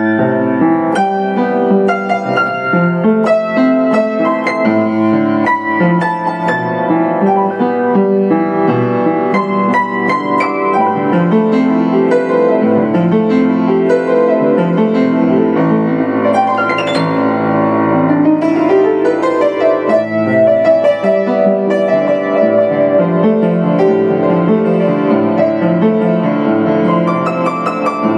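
Yamaha U1J upright piano played solo: a steady stream of notes over lower chords, with a quick rising run of notes about two-thirds of the way through.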